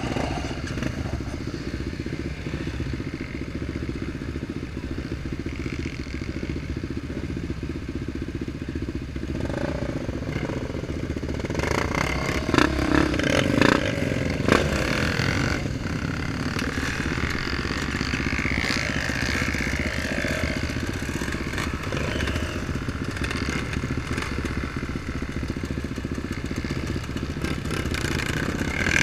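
Engine of an off-road vehicle running steadily on a trail ride. Knocks and rattles come in a cluster about midway through.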